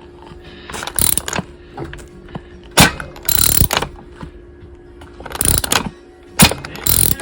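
A 1957 Johnson 18 hp two-stroke outboard powerhead being turned over by hand at the flywheel nut, giving a string of irregular short mechanical clicks and rasps. It is being turned to leak-test a bad upper crankshaft seal, which lets air bubble out through the seal as the engine builds compression.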